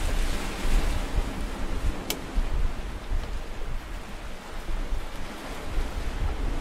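Wind buffeting the microphone in a gusty low rumble over the hiss of sea surf, with one sharp click about two seconds in as a backpack is handled and packed.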